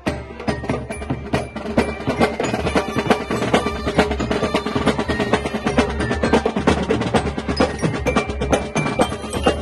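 Marching band playing: fast, dense snare and bass drum strokes with a pitched melody over them.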